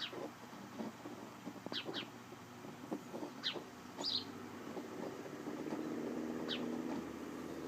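House sparrow chirping: short single and double chirps, each falling quickly in pitch, about six of them spread irregularly. A low steady hum rises under them about halfway through and is the loudest sound for a few seconds.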